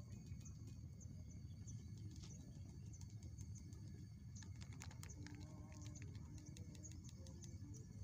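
Faint outdoor ambience with a steady low rumble, over which come small clicks and taps from handling a coffee sachet and glass cup, bunched about halfway through. Short faint high chirps repeat about twice a second throughout.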